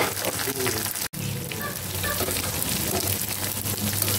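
Dried shrimp frying in hot oil with minced garlic and chili in a wok: a steady dense sizzle and crackle. The sound cuts out for an instant about a second in.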